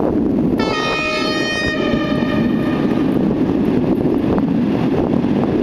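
Train horn sounding one short blast of about a second, a single bright pitched note that trails off. A steady rumble of wind on the microphone runs underneath.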